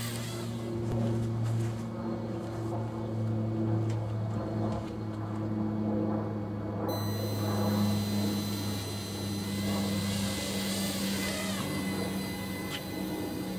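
Ladybird quadcopter's small electric motors running with a steady pitched hum; about halfway through a higher whine comes in suddenly.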